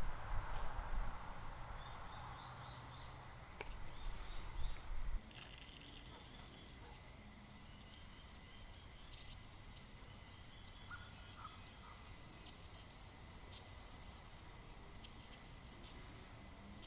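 Faint outdoor ambience of insects chirping in short repeated trills. A soft spray hiss fades out in the first couple of seconds, and from about five seconds in there is a faint scatter of fine ticking.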